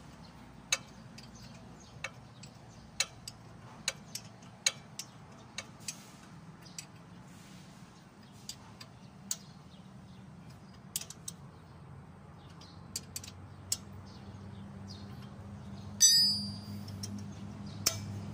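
Sharp, irregular metallic clicks of a wrench working the nuts as the king pin kit is tightened onto the steering knuckle of an Isuzu Elf truck. About sixteen seconds in, one louder metal clang with a brief ringing tone.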